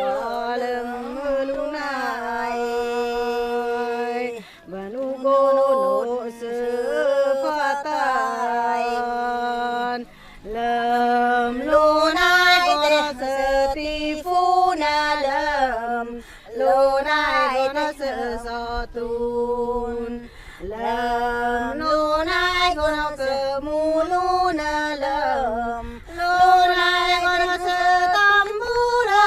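T'boli traditional chanted singing by a single unaccompanied voice, holding long notes with wavering ornaments. The phrases are separated by short pauses for breath.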